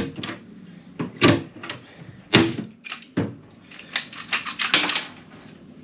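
Hand pop-rivet gun being squeezed over and over to set a 3/16-inch aluminum rivet, giving a series of sharp metallic clicks and snaps about a second apart, closer together near the end.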